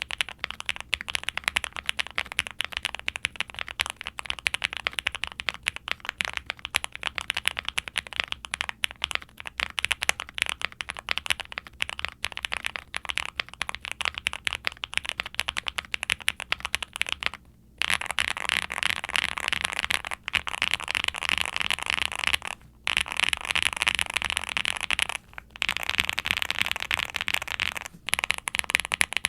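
Fast typing on a QwertyKeys QK65 mechanical keyboard with lubed Gateron Nylon Kangaroo tactile switches, a POM plate and GMK double-shot ABS keycaps: a dense run of key clacks with a deep, creamy bottom-out. It stops briefly about halfway through, then comes back in short louder runs separated by brief pauses.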